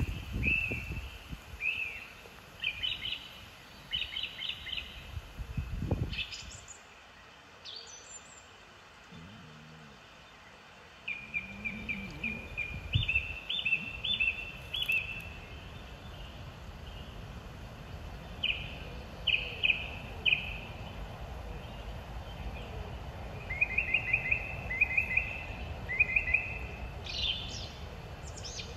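Small birds chirping in quick series of short, high notes, repeated many times, over a low steady rumble of wind on the microphone that grows louder partway through.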